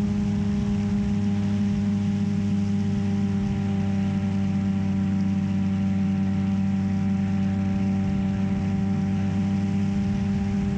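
Brushless electric motor (Emax 2215) and 10x4.5 propeller of an FT Spear FPV plane running at steady throttle: a constant pitched hum that holds one note throughout.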